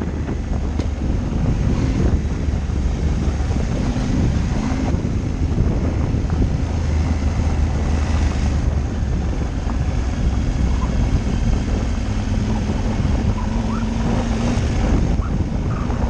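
Off-road motorcycle engine running while riding a gravel track, mixed with heavy wind buffeting on the microphone; a steady, even rumble.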